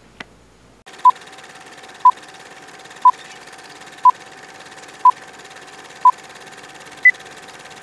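Old-film countdown leader sound effect: six short beeps one second apart at the same pitch, then a seventh beep at a higher pitch, over a steady film-style hiss and faint hum.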